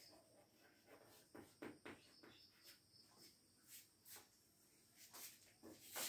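Faint chalk strokes and taps on a blackboard: a run of short scratchy ticks in the first few seconds, then a few scattered ticks and a sharper click near the end.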